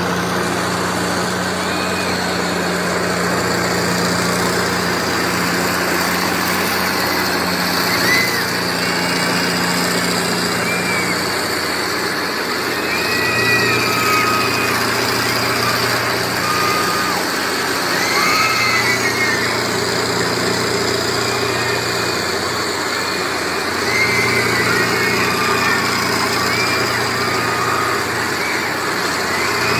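Steady mechanical drone of a Twister fairground ride running, its low motor hum shifting between two pitches every few seconds, with faint short high cries over it.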